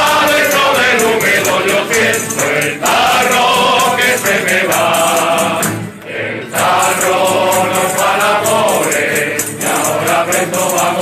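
Tuna, a male student chorus, singing together to strummed guitars and bandurrias with an accordion. The music drops out briefly about six seconds in, then the chorus comes back in.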